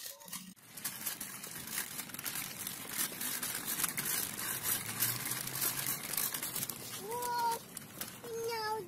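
Small plastic tricycle wheels rolling over brick paving, a continuous irregular crackling rattle. Near the end a young child's voice calls out twice, short and high-pitched.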